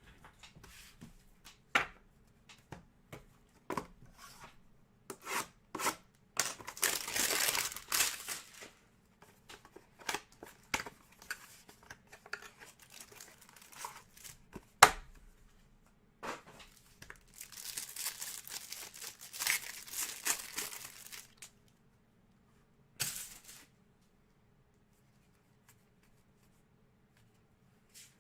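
Card packaging being torn open and crinkled: two long stretches of tearing and crinkling, with scattered light clicks and taps of card handling and one sharp tap about halfway through.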